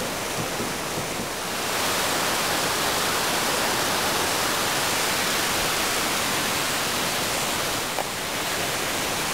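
Steady rushing outdoor noise that swells about two seconds in, with a brief click and a slight drop near the end.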